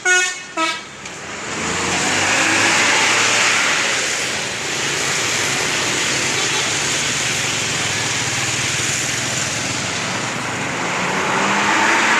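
A bus's telolet musical horn finishes a run of short tooting notes in the first second. Then a bus engine runs, with loud road noise as the vehicle goes by, and an engine note slides down in pitch near the end.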